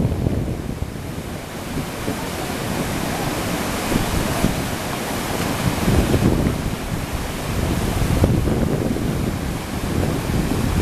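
Whitewater rushing steadily through a big river standing wave, a continuous churning of water, with wind buffeting the microphone in gusts.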